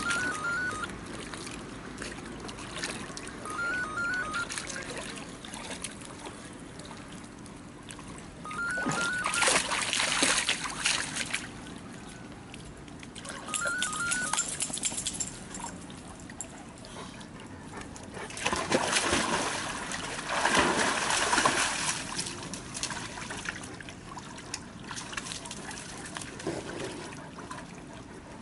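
Water splashing and spraying in three bursts of a few seconds each. A short high three-note chirp repeats four times in the first half.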